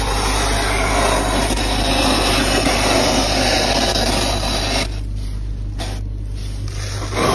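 A scoop scraping flaky frost off the inside of a freezer, a continuous crunchy rasp that breaks off briefly a couple of times about five seconds in. A steady low hum runs underneath.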